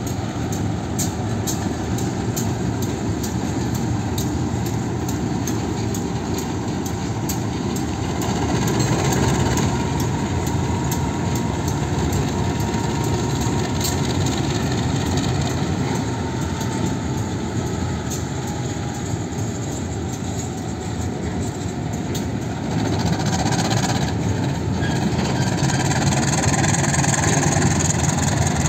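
KAI CC 201 (GE U18C-type) diesel-electric locomotive running slowly past while shunting flat wagons, its diesel engine running steadily, with a quick series of sharp clicks through the first half. Growing louder near the end as the flat wagons roll by.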